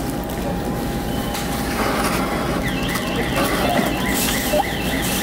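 Store background din at a self-checkout. In the second half comes a quick run of high chirps, about four a second.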